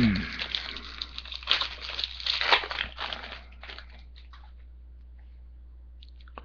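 Trading card pack wrappers crinkling and tearing as packs are opened and the cards handled, in irregular crackles for about four seconds, then only a faint steady hiss. A short falling vocal sound comes at the very start.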